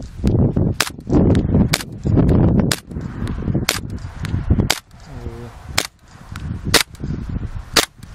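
ASG CZ P-09 gas blowback airsoft pistol firing single shots, about one a second, each a sharp crack. Wind rumbles on the microphone between shots. By the last shot the gas is too weak.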